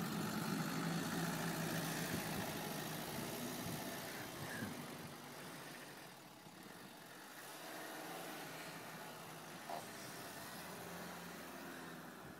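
Pickup truck engine running as the truck drives through deep snow, loudest at first close by and fading as it moves off. A brief sharp sound about ten seconds in.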